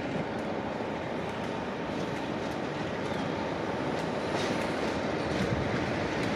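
Train running on the line: a steady rolling rumble with a few short wheel clicks in the second half.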